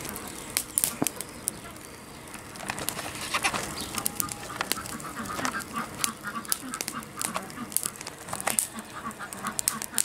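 Ducks quacking in the background, in a run of short repeated calls from about four seconds in, over scattered sharp crackles and pops from a small wood fire of sticks and kindling.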